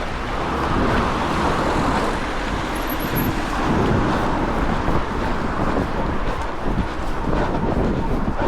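Wind rumbling on the microphone of an Insta360 Go Ultra action camera, mixed with road traffic from cars passing.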